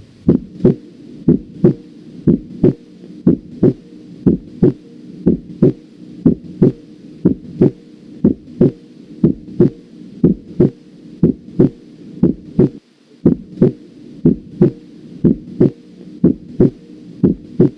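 Heart sounds heard through a stethoscope: a regular lub-dub, the first and second heart sounds in pairs about once a second. They are presented to demonstrate the second heart sound over the aortic and pulmonary areas.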